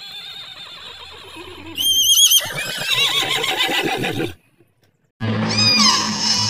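Zebra calling: a series of wavering, whinny-like calls that grow loudest about two seconds in and stop about four seconds in. After a short silence a different animal call with falling notes begins near the end.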